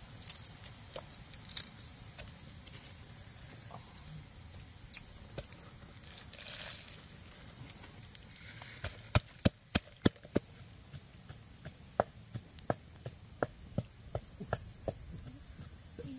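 A run of sharp knocks and clicks from a mortar holding chilies, garlic, ginger and coarse salt, coming irregularly about two a second in the second half, over a steady high drone of insects.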